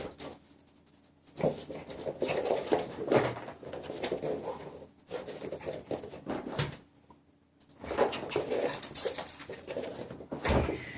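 A small dog's vocal sounds come in irregular bursts, with two short pauses.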